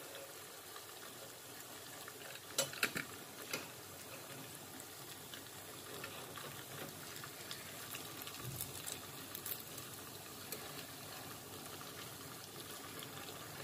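Ghevar batter deep-frying in hot oil in a steel pot, a steady bubbling sizzle. A few sharp clicks about two and a half to three and a half seconds in come from a knife knocking against the pot.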